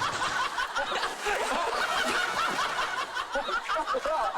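A group of men laughing together, with several voices overlapping.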